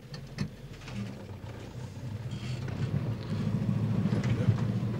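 Vehicle engine and road rumble heard from inside the cab while driving, growing louder over the first three seconds and then holding steady.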